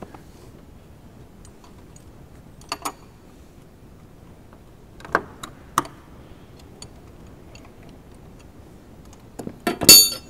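Steel end wrench clicking against a fuel line fitting: a few sharp metal clicks spaced a couple of seconds apart, then a louder burst of ringing metal clinks near the end.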